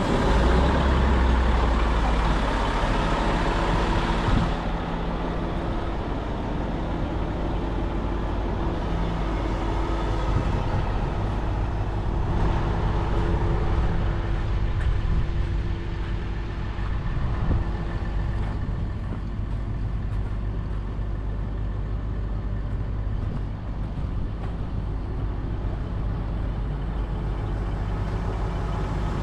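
Komatsu HM400-5 articulated haul truck's diesel engine idling steadily, louder for the first few seconds.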